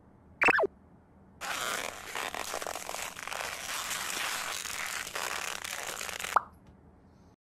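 Close rustling and crinkling of bedding, starting about a second and a half in and stopping abruptly about six seconds in. Just before it, a brief sharp sound falls quickly in pitch.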